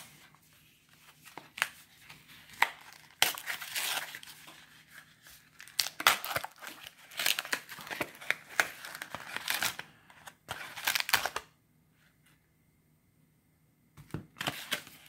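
Plastic blister packaging and its cardboard backing card being torn and peeled apart by hand, with irregular bursts of crinkling and tearing. The tearing stops about eleven seconds in, and a few more rustles come near the end.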